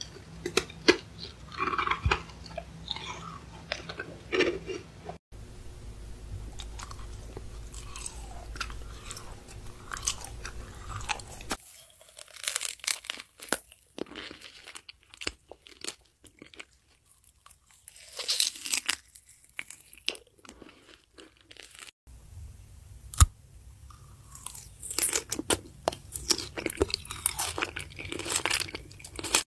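A person chewing and crunching food close to the microphone: irregular crisp crunches and mouth sounds, with the low background changing abruptly a few times between clips.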